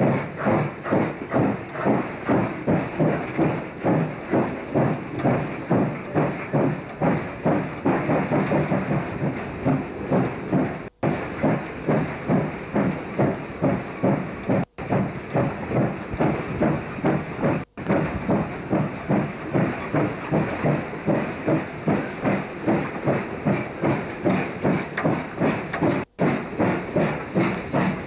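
Class 15F steam locomotive working, its exhaust chuffing in a fast, even rhythm over steady steam hiss. The sound cuts out for an instant four times.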